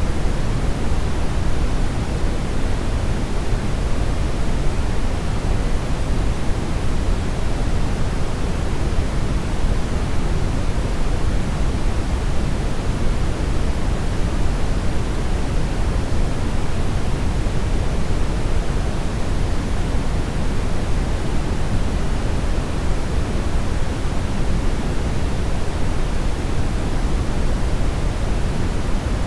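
Brown noise: a steady, unchanging rumble-like hiss, strongest in the deep lows and falling away toward the highs.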